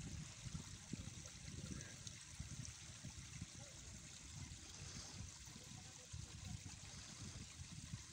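Faint riverbank ambience: river water lapping and trickling against the rocks at the water's edge, with an irregular low rumble and a steady soft hiss.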